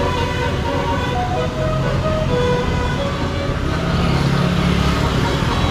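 A bus's 'telolet basuri' musical air horn playing a short stepped tune of notes over the rumble of the bus engine. The horn fades out about halfway through while the engine runs on.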